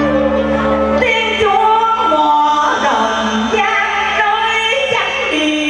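Vietnamese vọng cổ music, a melody that slides and bends between notes. A held low note ends about a second in, and another comes in near the end.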